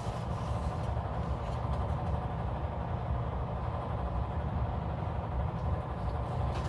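A steady low hum with no breaks or changes, the background noise of a room with something like a fan or heater running.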